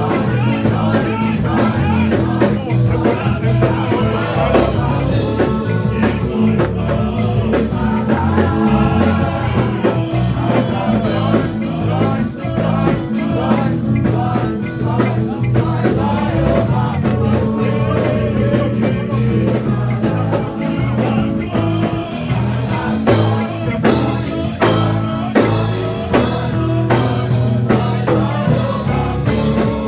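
Live gospel worship music: a congregation singing along with instrumental accompaniment, with steady hand clapping and jingling percussion keeping the beat.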